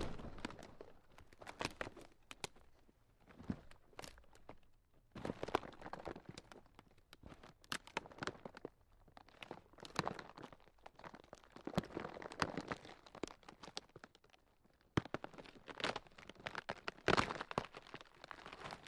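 Ground cracking: irregular crunching and crackling snaps that come in clusters, with a couple of short quiet gaps.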